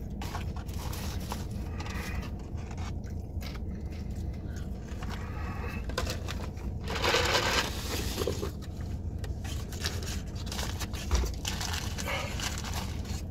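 Fast-food wrapper paper rustling and crinkling while food is handled, with a louder crinkle about seven seconds in, over a steady low hum.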